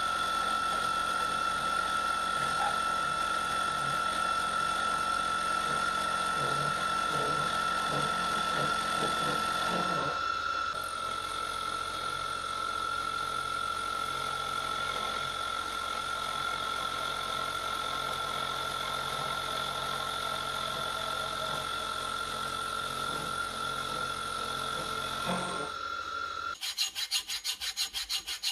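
Milling machine spindle running with an end mill cutting metal: a steady high whine over the rough noise of the cut, which lightens about a third of the way in. The spindle stops shortly before the end, followed by a quick run of rubbing strokes.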